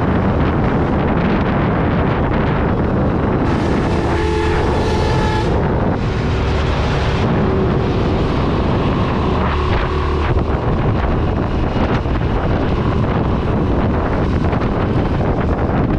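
Wind rushing over the microphone of a motorcycle riding at speed, with the engine running underneath. A horn sounds three times, about 4, 6 and 10 seconds in.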